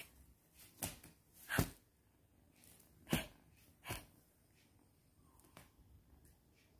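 Artificial plastic-leaf branch swishing over a bedsheet as kittens play with it: four short swishes in the first four seconds, then a few fainter ones.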